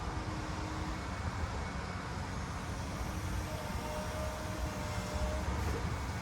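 Gusty wind rumbling and buffeting on the microphone, with a faint steady hum coming in about halfway through.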